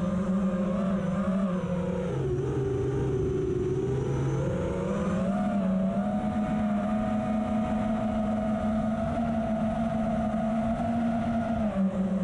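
FPV quadcopter motors and propellers whining under a rushing of wind noise. The pitch drops about two seconds in, then climbs back about five seconds in and holds steady, following the throttle.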